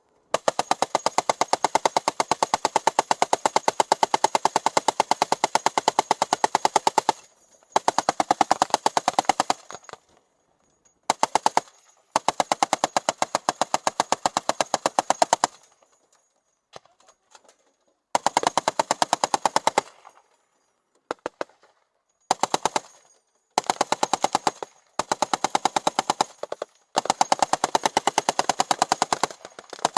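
M2 .50-calibre heavy machine gun firing rapid automatic bursts: a long burst of about seven seconds, then some eight shorter bursts separated by brief pauses.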